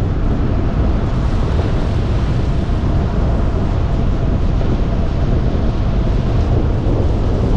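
Steady road and wind noise from a truck driving at speed: a dense low rumble with a hiss above it.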